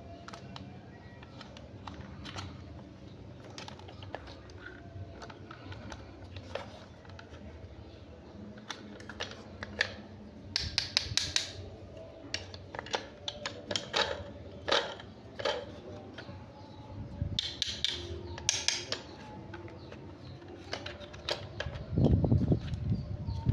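Hands handling a plastic toy and its packaging: irregular clicks and crinkly rustling, busiest in the middle, with a louder low thump or rumble near the end.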